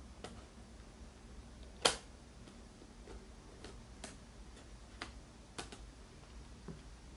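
Scattered small clicks and taps from parts of an opened-up Lenovo ThinkPad laptop being handled. The sharpest and loudest click comes about two seconds in.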